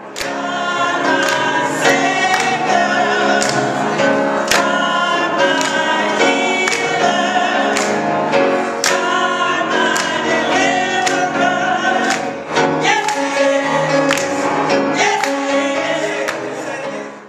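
Gospel choir singing over instrumental backing with a steady beat.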